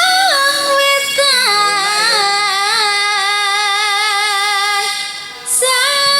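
A sinden (Javanese female singer) singing long held notes with wavering ornaments over accompanying music. Her line fades out about five seconds in and comes back in just before the end.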